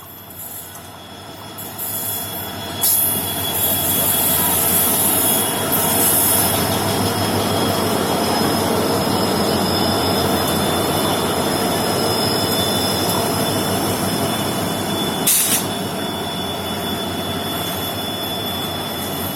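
Goods train wagons rolling on the track, with steady high-pitched wheel squeal over the running noise, growing louder over the first few seconds. A sharp knock comes about three seconds in, and a brief loud burst about fifteen seconds in.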